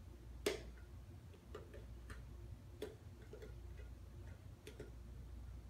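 Cat working at a plastic Frolicat toy: faint, irregular clicks and taps of hard plastic, the loudest about half a second in, then half a dozen lighter ones.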